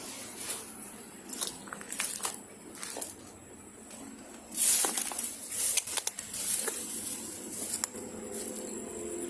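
Footsteps crunching over debris and brushing through overgrown vegetation, with a louder rustling stretch from about halfway through. A steady high insect trill runs behind.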